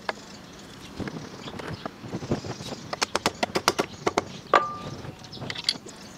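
Small metal hammer tapping a bolted wooden block onto a wooden scooter part: a series of light knocks, a quick run of about five a second near the middle, then one harder strike with a brief metallic ring.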